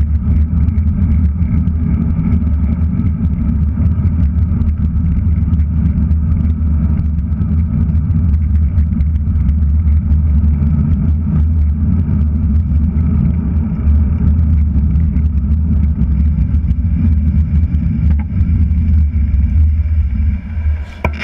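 Wind buffeting the microphone of a handlebar-mounted GoPro Hero3+ on a moving road bike: a loud, steady low rumble mixed with road noise. It drops away near the end as the bike comes up to a street corner.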